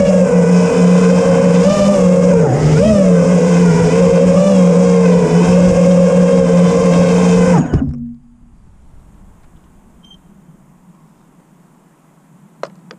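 FPV freestyle quadcopter's four brushless motors (Ethix Stout 2306, 1750KV) spinning propellers: a loud, steady whine whose pitch wavers a little now and then. The whine cuts off suddenly about eight seconds in, leaving a faint hiss and one short click near the end.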